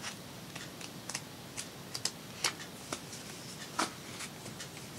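Quiet rustling of thin decorative paper strips being handled and laid down, with a scattering of faint, irregular ticks and taps as the paper moves.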